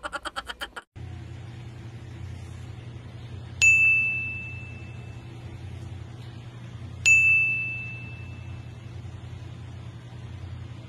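Two bright, bell-like dings about three and a half seconds apart, each a single clear note that rings out and fades over about a second, over a steady low hum.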